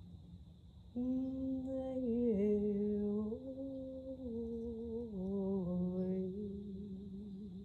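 A woman's wordless singing: long held tones starting about a second in, stepping slowly between a few pitches and settling lower toward the end.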